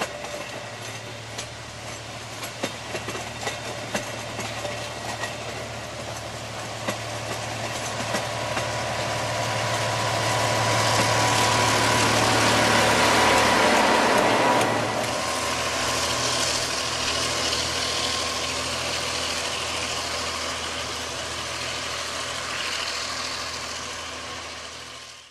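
Passenger carriages rolling past with sharp wheel clicks over the rail joints, then the diesel locomotive pushing at the rear of the train goes by under load. Its engine hum is loudest about halfway through, then eases as the train moves away up the grade.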